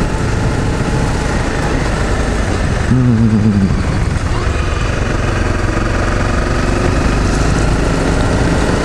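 Honda CRF250M's single-cylinder four-stroke engine running while under way, under a steady rush of wind noise. About three seconds in there is a brief falling tone.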